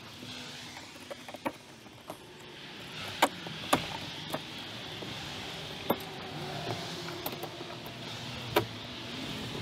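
Irregular sharp knocks and cracks, about seven in all, as old wooden fascia trim is worked loose by hand along a roof edge, over a steady background of distant traffic.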